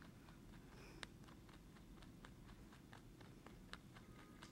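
Pet rabbit chewing its food: faint, quick crunching clicks at about four a second, with one sharper click about a second in.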